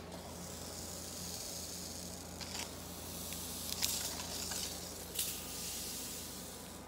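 Steady hissing rustle of cloth rubbing against the phone's microphone, broken by a few brief knocks.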